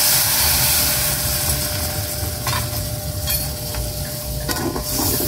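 Spice paste in a hot wok sizzling and hissing as a little water is poured in to stop it scorching. The hiss is strongest at first and eases after about a second, and a few sharp clicks of a metal spatula against the wok follow.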